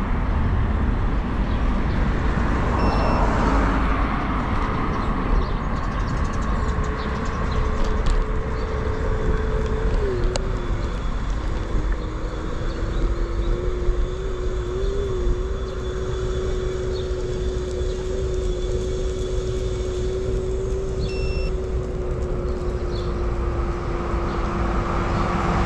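Road traffic noise: a steady low rumble of passing vehicles, with a constant engine drone that sets in about a quarter of the way through and holds one pitch.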